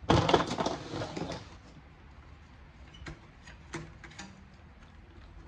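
Clatter of parts being handled while an electronics unit is taken apart for scrap: a burst of rattling knocks and clicks in the first second and a half, then a few single clicks.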